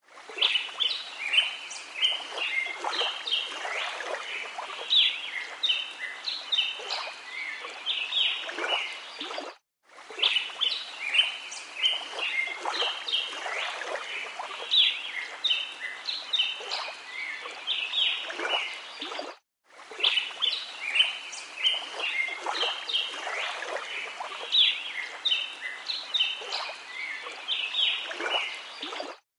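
Small birds chirping and calling over the steady rush of running water. The same ten-second stretch plays three times, with a brief silent break between each.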